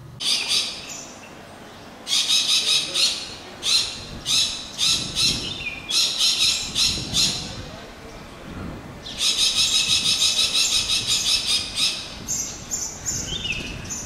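Harsh, rapid chattering bird calls in repeated short bursts, then a longer unbroken run about two-thirds of the way through, fading near the end.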